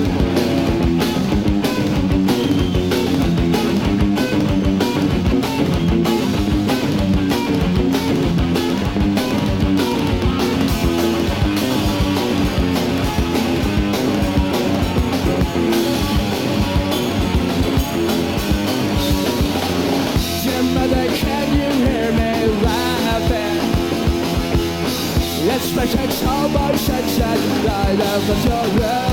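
Punk rock band playing live: electric guitar, bass and drum kit in an instrumental break with no vocals.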